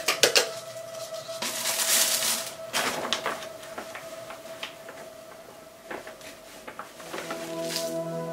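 Repotting sounds: a plastic nursery pot and a plant's root ball being handled. A few sharp clicks and knocks come right at the start, then soil rustles and scrapes as the plant is settled into a ceramic pot. Soft background music with held notes plays throughout and grows louder near the end.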